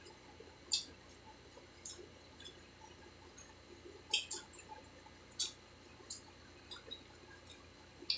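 Mouth sounds of eating pizza and French fries: chewing with scattered sharp, wet smacks and clicks at irregular intervals.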